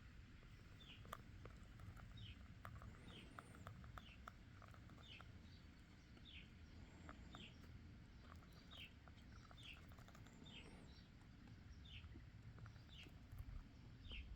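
A bird chirping faintly over and over, each chirp a short high note sliding downward, about one every half second to a second, with a few light clicks scattered between.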